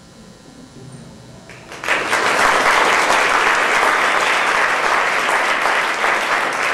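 Audience applause breaking out suddenly about two seconds in as the music ends, then dense, steady clapping.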